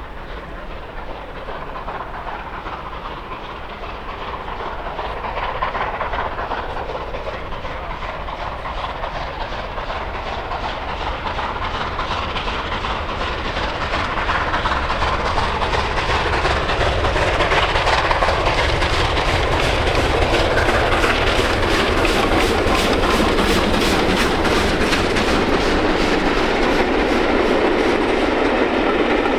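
Steam-hauled train headed by Merchant Navy Class Pacific 35018 approaching and passing, growing steadily louder. From about halfway in there is a fast, even clatter of wheels and exhaust beats.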